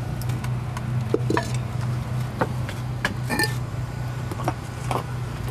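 Ceramic bowls and an earthenware pot being handled and set down: scattered light clinks and knocks, one ringing clink about three seconds in, over a steady low hum.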